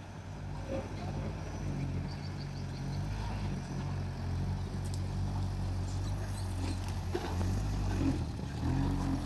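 Heavy diesel engine of an excavator or dump truck running steadily at a low, even pitch, with a few faint knocks about five and seven seconds in.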